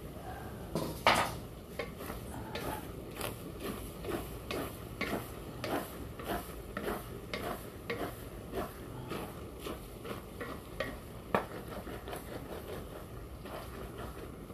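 Spatula stirring and scraping a chopped bopis mixture in a large aluminium wok, in quick irregular strokes over a low frying sizzle. The spatula knocks hard against the pan twice, about a second in and again later on.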